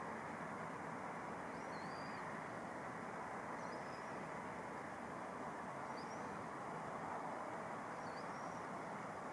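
A bird calling four times in short, high, whistled notes about two seconds apart, over a steady rushing background noise.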